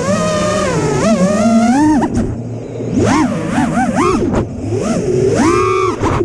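FPV freestyle quadcopter's brushless motors revving up and down rapidly as the throttle is worked, the whine sliding sharply in pitch, dropping away briefly twice and climbing to a high held whine near the end.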